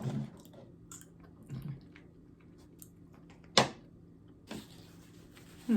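Close-miked eating sounds: soft chewing and mouth noises, with one sharp click about three and a half seconds in.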